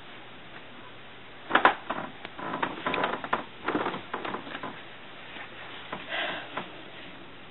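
A person climbing onto a bed right next to the microphone: bedding and clothing rustle, with a few soft knocks, the loudest about a second and a half in, then settling into smaller rustles over a steady hiss.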